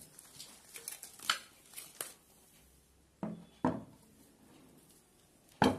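A cast-iron papad press being handled and moved: a scattering of clicks and clattering knocks of metal, with the loudest sharp knock near the end.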